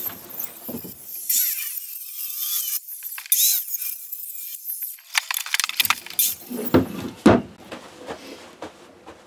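Circular saw cutting through the plywood shed floor, a high-pitched whine. From about six seconds in it gives way to a run of sharp knocks and clatters.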